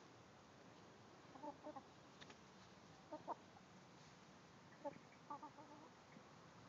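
Hens clucking quietly as they forage: short clucks in three little bunches, about a second and a half in, around three seconds and around five seconds.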